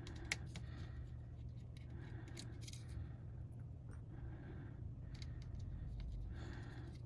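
Irregular small metallic clicks and ticks from precision tools and tiny screws being worked on a laptop's internal parts, over a low steady hum.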